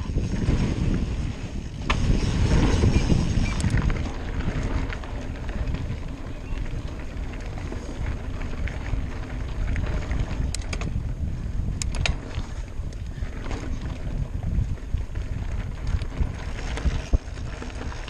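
Wind rushing over the microphone and mountain bike tyres rolling over grass, dirt and gravel, as a steady rumble, with a few sharp clicks and rattles from the bike around the middle.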